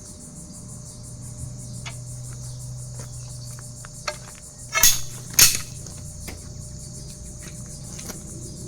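Crickets chirping steadily over a low hum, with two sharp knocks a little under halfway through, about half a second apart.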